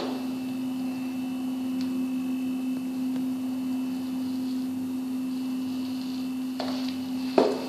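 A steady electrical hum, with a sharp knock near the end.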